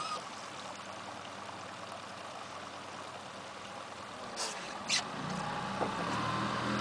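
Low, steady hum of a boat motor over the lap and trickle of river water, with two sharp clicks about four and a half seconds in. The motor's hum comes up louder about five seconds in.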